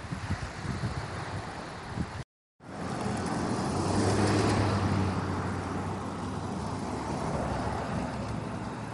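Wind buffeting the microphone, cut off abruptly about two seconds in. Then a car passing on a paved road, swelling to loudest around four to five seconds in and fading away.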